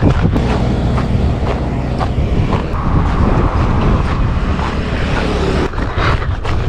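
Strong wind buffeting the camera microphone, a steady low rumble.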